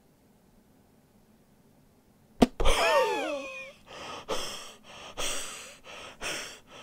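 A man's mock sleeping noises: a sharp click, then a drawn-out voice sliding down in pitch, followed by loud, open-mouthed breaths about once a second.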